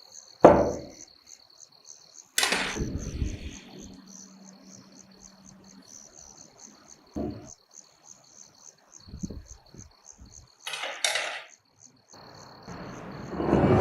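Crickets chirping steadily with rapid, even chirps. Work noises break in over them: a sharp knock, a louder scraping burst, a few lighter knocks and a short hiss.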